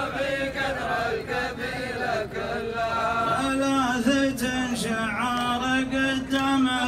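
Men chanting rajaz poetry in unison, their voices drawn out into a long held note from about three seconds in.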